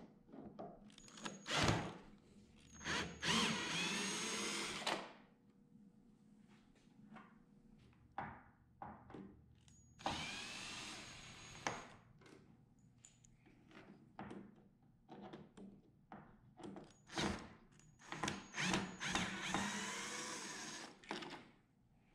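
Cordless drill driving screws into wood in three runs of a few seconds each, its motor whining up in pitch with each trigger pull, with short knocks and clicks of handling in between.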